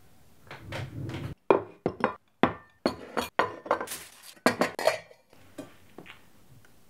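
Plates, bowls, a glass and cutlery clinking and knocking on a table as a meal is set out and served: a quick run of sharp clinks, broken by abrupt dead silences, that dies away about five seconds in.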